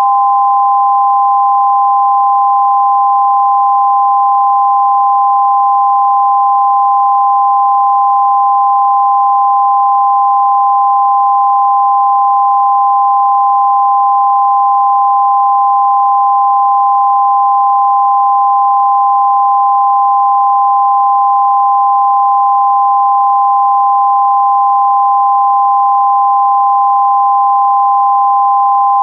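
Television test tone that accompanies colour bars after a station's sign-off: two steady pure pitches sounding together, loud and unbroken.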